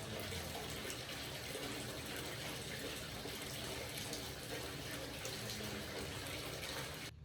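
Water running steadily, an even rushing flow, cut off abruptly near the end.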